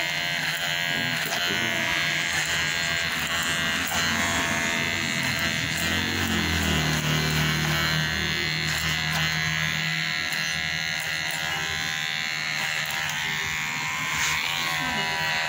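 Electric hair clipper buzzing steadily as it cuts hair over a comb, clipper-over-comb work on a fade.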